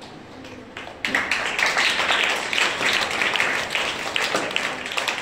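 A crowd of people clapping, starting suddenly about a second in and going on steadily.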